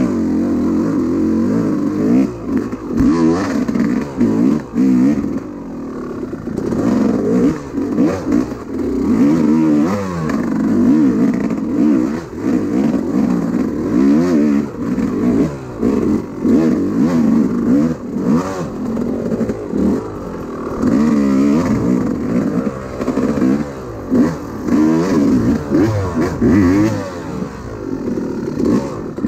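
Dirt bike engine being ridden on an enduro trail, revving up and dropping back over and over as the throttle is worked.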